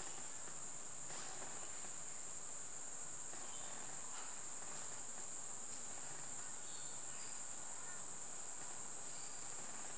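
A steady high-pitched buzz that holds one even pitch throughout, with a few faint light ticks from handling a metal height gauge on the oil pump housing.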